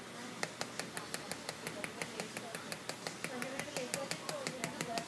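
A small metal tool rapidly striking the tempered-glass screen protector on an iPhone 5: sharp hard taps, about six a second, beginning about half a second in.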